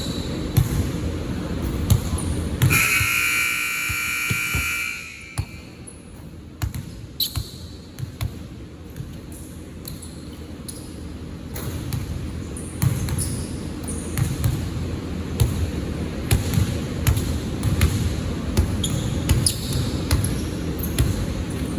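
Basketball bouncing on a hard gym court, with repeated dull thumps and sneaker squeaks. About three seconds in, a loud high-pitched tone sounds for about two seconds.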